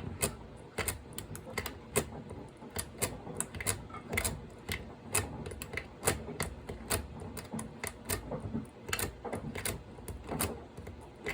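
Steel lock pick being zipped and raked across the pins of a pin-tumbler doorknob lock under tension, giving a run of sharp, irregular metallic clicks, about two or three a second.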